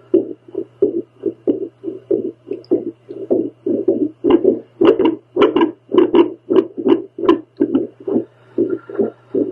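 A woman's heartbeat picked up by a handheld doppler: rhythmic whooshing pulses, about three a second, over a steady low hum from the device. From about four seconds in to about seven and a half the pulses turn sharper and louder.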